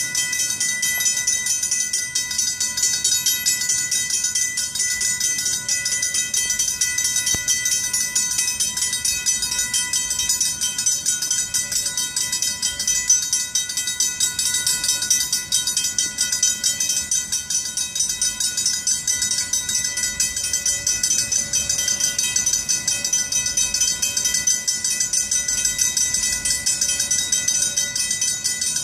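Griswold mechanical grade-crossing bells ringing steadily in rapid, unbroken strokes: the crossing warning is active for an approaching train.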